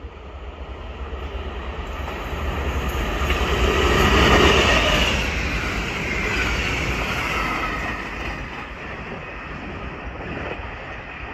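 Freight train hauled by a class MZ diesel locomotive passing close by. The noise grows to a peak about four seconds in, then the long rake of covered wagons keeps rolling past with a steadier wheel-on-rail noise that slowly fades.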